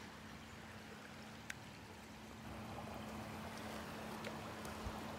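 Shallow waves washing in over wet sand at the water's edge, a steady wash that gets louder about halfway through, with one sharp click about a second and a half in.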